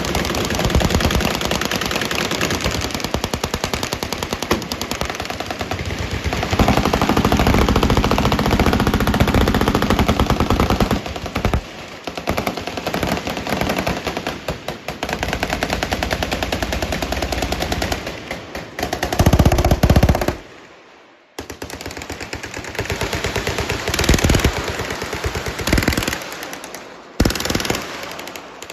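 Several automatic weapons on a firing line shooting at once: long, overlapping bursts of rapid gunfire that run almost without a break. About two-thirds through the firing stops for a moment, then resumes in shorter, choppier bursts.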